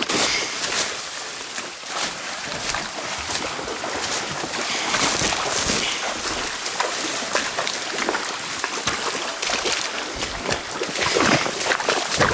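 Water sloshing and splashing, with irregular steps, as someone wades up a creek.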